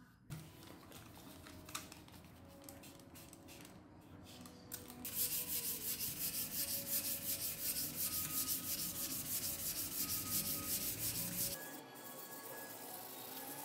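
Sandpaper rubbed by hand along a steel combination wrench in quick back-and-forth strokes, about three a second, smoothing the metal. The strokes start loud about five seconds in and drop back near the end, with soft background music underneath.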